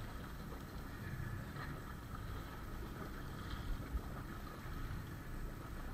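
Steady wind and water wash aboard a small boat. Two brief thumps come close together just before four seconds in.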